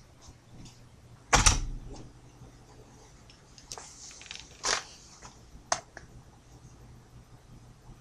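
A door shutting with a single loud thud about a second and a half in, ringing briefly, followed by a few sharp clicks and knocks of the camera being picked up and handled.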